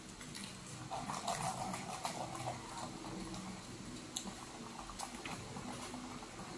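Bubble tea being sucked through a wide straw: faint crackly slurping of milk tea and tapioca pearls, busiest in the first couple of seconds, with scattered small clicks.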